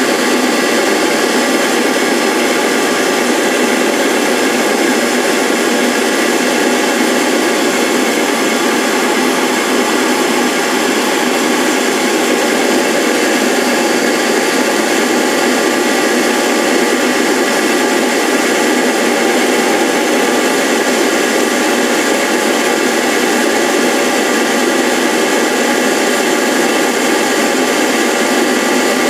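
A lathe's motor-driven cutting setup running steadily while a slow finishing pass cuts across a wooden disc. The pitch and level stay unchanged throughout.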